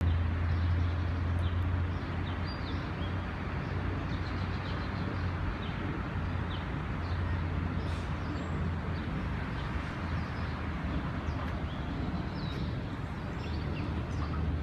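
Steady outdoor background: a constant low hum and hiss, with small birds chirping briefly now and then.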